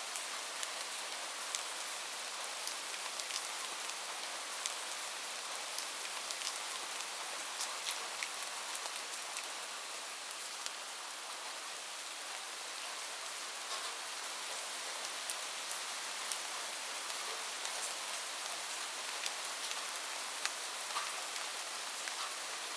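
Light rain falling steadily, a soft even hiss with many individual drops ticking on surfaces.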